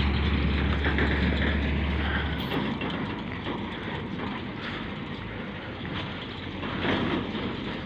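Ride noise from a moving motorcycle: steady rushing wind and road noise with the engine running underneath, getting gradually quieter. A deep low hum in the first two and a half seconds cuts off abruptly.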